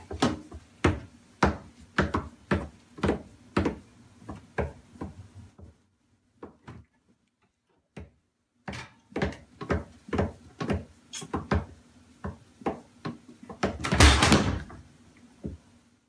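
Repeated knocking and thumping of a small child moving about inside a wooden kitchen cabinet, about two knocks a second. The knocks stop for about three seconds midway, then resume, with a longer, louder clatter near the end.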